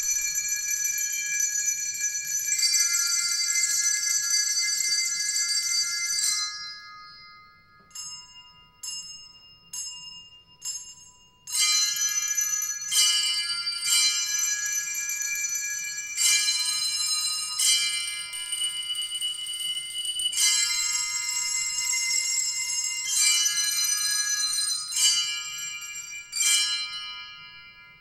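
Bell-like metal percussion played as improvised music: several high pitches struck together and left to ring. About a quarter of the way in the ringing stops, leaving a few short isolated strikes, then sustained ringing clusters return with fresh strikes every second or two.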